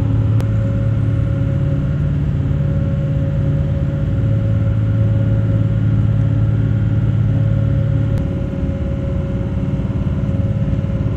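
Diesel engines of a motor yacht running steadily at cruising speed: a constant low drone with a steady hum above it, easing slightly about eight seconds in.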